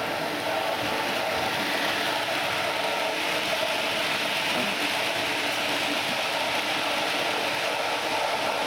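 Model diesel locomotive and its wagons running along the layout's track: a steady whirr and rumble of the motor and wheels on the rails.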